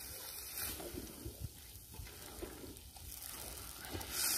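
Onion, carrot and bell pepper sizzling as they fry and stew in their own juice in a kazan over a wood fire, with a few faint knocks. The hiss grows louder near the end.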